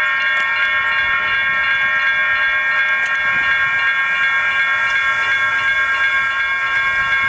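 Railroad crossing electronic bells (GS Type 1 and WCH e-bells) ringing steadily, several bells at once in a chord of high tones: the crossing signals are activated for an approaching train.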